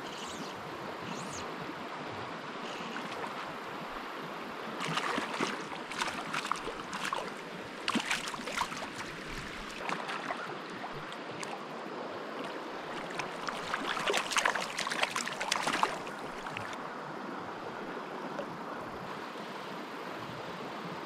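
Steady rush of a flowing stream, with three spells of splashing as a hooked trout thrashes at the surface, about five, eight and fourteen seconds in.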